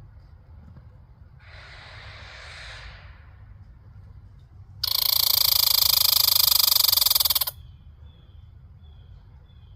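American red squirrel giving its rapid, rattling chatter call for about two and a half seconds, loud and fast-pulsed. It is preceded about a second and a half in by a quieter hissing call.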